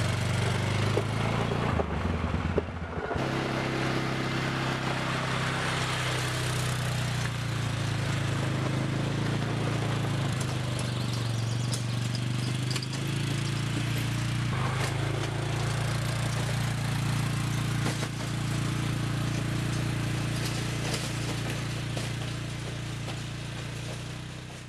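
Four-wheeler (ATV) engine running steadily as it drives along a trail. The sound fades away near the end.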